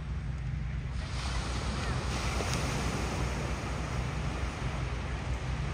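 Steady rush of wind and sea water with a low rumble underneath; the hiss grows stronger about a second in.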